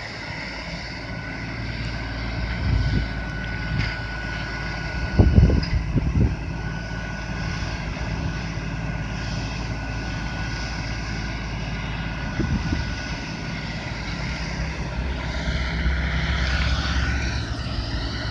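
LS XR4155H 55 hp compact tractor's engine running steadily while plowing snow, with a few brief louder knocks or rustles, the strongest about five to six seconds in.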